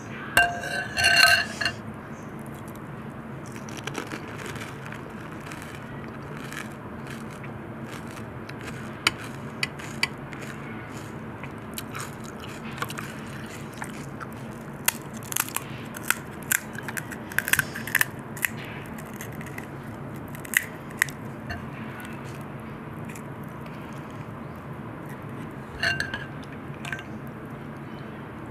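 Crisp panipuri shells crunching and being chewed, with many short sharp crackles through the middle. About a second in, and again near the end, a metal spoon clinks against the glass bowl of pani.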